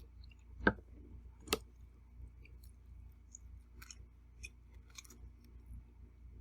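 Eating utensils knocking and clicking against a plate: two sharp knocks about a second apart near the start, then a few fainter clicks.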